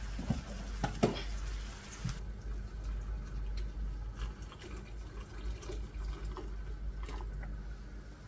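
Water running from a kitchen tap into a sink, shut off abruptly about two seconds in, followed by scattered small knocks and clatter.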